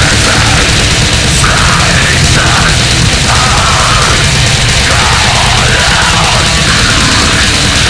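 Goregrind/brutal death metal music, loud and dense throughout: heavily distorted guitars and rapid drumming.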